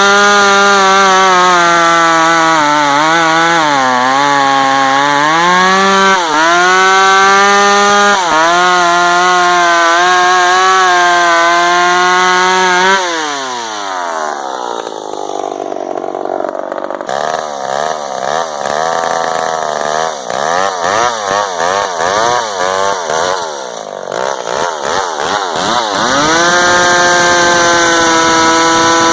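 McCulloch Pro Mac 55 two-stroke chainsaw running at high revs through wood, its pitch dipping and recovering as the chain bites. About 13 seconds in it drops back to a lower, rougher idle, then revs up again to a steady high pitch near the end.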